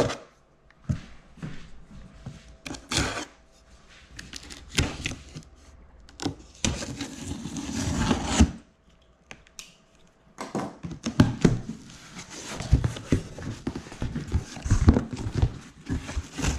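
A folding pocket knife slitting the packing tape on a cardboard box, a rasping cut of about two seconds near the middle. Taps and knocks of the cardboard being handled come throughout, and the box flaps are pulled open and rustled near the end.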